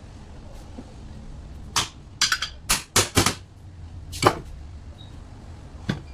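A run of about eight sharp knocks or taps, most of them close together between two and four and a half seconds in and one more near the end, over a low steady hum.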